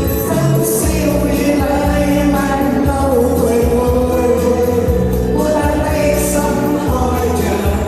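A pop ballad sung over a backing track with a steady beat, the voice holding one long note through the middle.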